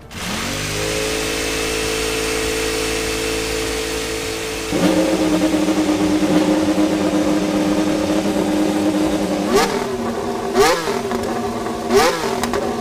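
Formula 1 turbocharged V6 hybrid power unit firing up and settling into a steady idle. It steps up to a higher idle about five seconds in, then takes three short, sharp throttle blips near the end.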